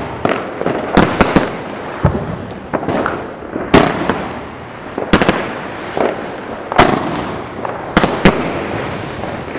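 Fireworks going off in an irregular volley: about a dozen sharp bangs from shots launching and bursting, some in quick pairs, each ringing out briefly, with a constant hiss between them.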